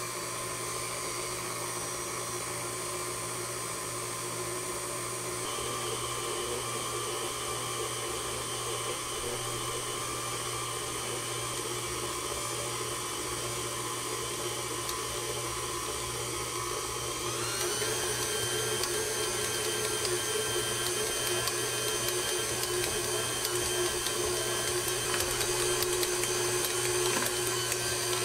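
KitchenAid Classic Plus tilt-head stand mixer's motor running steadily while its dough hook kneads pizza dough in the bowl, a steady hum and whine. About two-thirds of the way through, its pitch steps up slightly and it gets a little louder.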